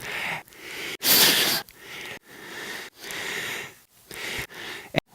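A person's heavy breathing, a run of about seven loud, noisy breaths in and out with short pauses between them, the strongest about a second in.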